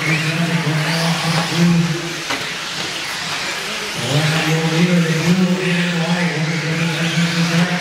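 Radio-controlled 4x4 short-course trucks racing on an indoor dirt track: motors whining up and down over the scrabble of tyres on dirt. A loud low droning tone runs under them, breaking off about two seconds in and returning about four seconds in.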